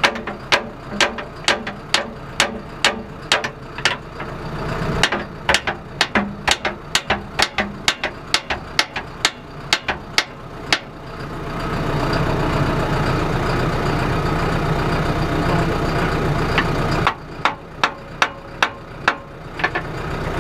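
An engine idling under sharp, evenly paced hammer strikes on metal, about two or three a second. Midway through, the strikes stop for several seconds while the engine runs louder, and they start again near the end.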